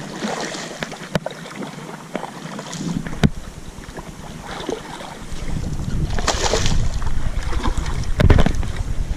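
Water splashing and sloshing around a canoe, with a couple of sharp knocks against the hull in the first few seconds. From about halfway through, wind buffets the microphone as a low rumble.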